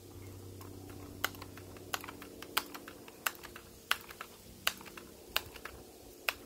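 Daisy 880 multi-pump air rifle being pumped up: the forearm pump lever is worked about eight times, each stroke ending in a sharp click a little under a second apart, charging the rifle with air.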